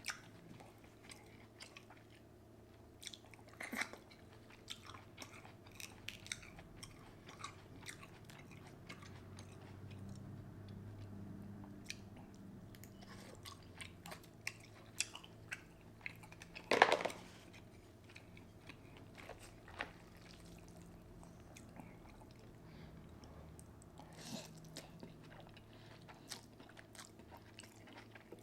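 Close-miked mouth sounds of a person eating seafood boil ramen: chewing and biting with scattered crunches and clicks, and one louder, half-second burst about seventeen seconds in.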